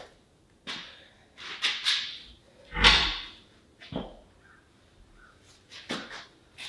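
Heavy camelback suspension parts being handled and set into place on the spring assembly: a series of separate clunks and short scrapes, the loudest about three seconds in.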